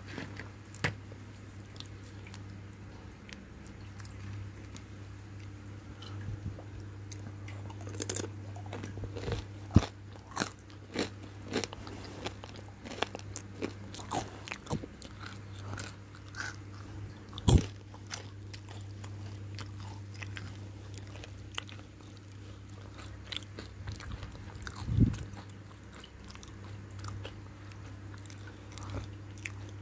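Close-up crunching and chewing of crispy battered deep-fried food: irregular crisp cracks with a few louder bites spread through, over a low steady hum.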